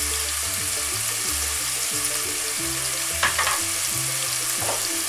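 Crumbled fresh sausage and chopped garlic sizzling steadily in hot oil in a frying pan, with a brief scrape of a spoon against the pan a little past three seconds in. Soft background music plays under it.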